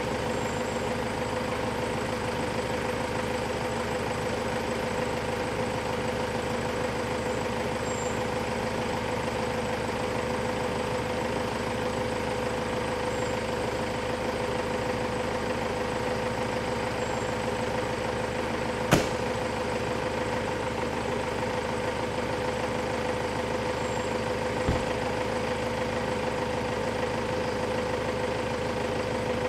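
A vehicle engine idling steadily. A sharp click comes about two-thirds of the way through and a dull thump near the end.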